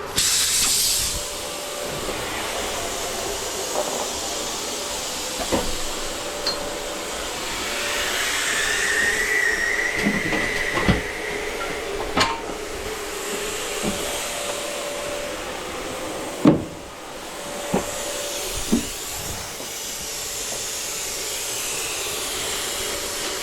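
Steady rushing hiss of escaping air, loudest for the first second, with scattered sharp clicks and knocks of tools during tire work.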